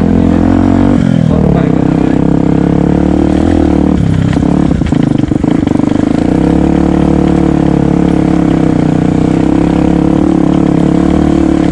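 Yamaha WR125X's single-cylinder four-stroke engine running under way, its note steady. The engine pitch drops briefly about a second in and again around five seconds in, with a few clicks and a short dip in loudness, then picks back up.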